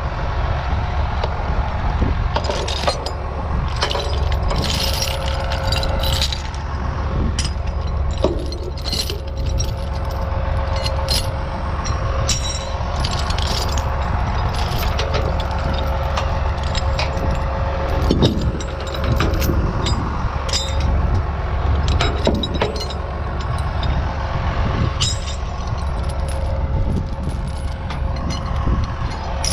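Steel tie-down chains and ratchet binders clinking and rattling as they are pulled out of a lowboy trailer's chain box, with many sharp, irregular metal clanks. A steady low rumble runs underneath.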